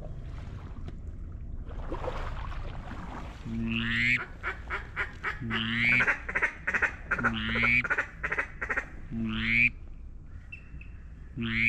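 Loud mallard-style quacking, a short falling quack about every one and a half to two seconds with fast chattering clicks between them, starting about three and a half seconds in over a low steady hiss.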